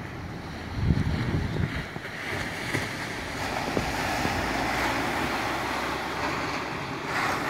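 Small waves breaking and washing up the beach, with wind buffeting the microphone in gusts about a second in.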